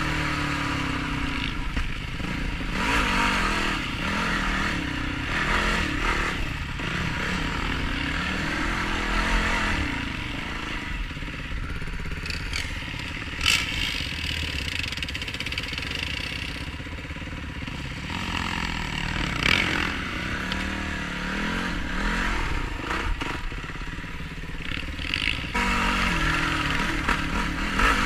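Yamaha YFZ450R sport quad's single-cylinder four-stroke engine revving up and down as it is ridden off-road, with occasional knocks and rattles.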